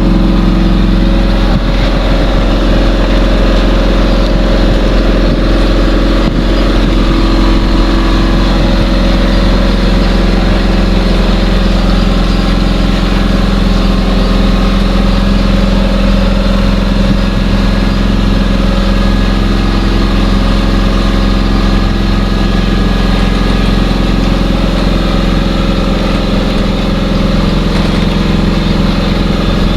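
An engine running steadily at an even speed, a constant hum without rises or breaks.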